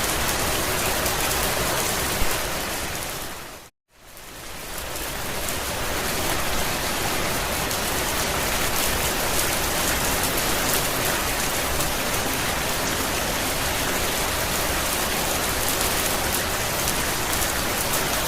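Steady rain falling on a campervan roof, an even hiss with fine patter of drops. About three and a half seconds in it fades out to silence for a moment, then fades back in.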